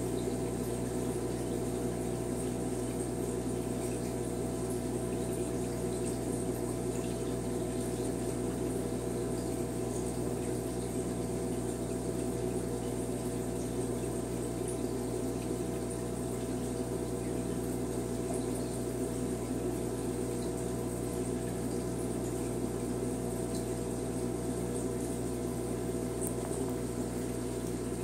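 Aquarium equipment running: a steady pump hum under a constant wash of moving, bubbling water, unchanging throughout.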